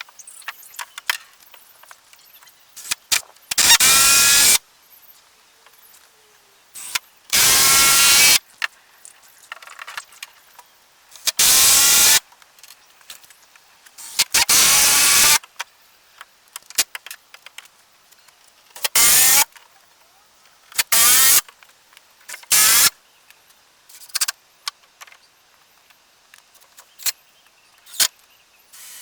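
Power drill run in about seven short bursts of roughly a second each, its motor pitch rising in each, with small knocks and clicks of handling in the gaps.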